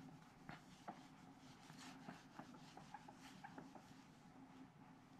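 Faint rubbing of a felt whiteboard eraser on the board, with scattered light clicks and taps as the eraser and marker are handled.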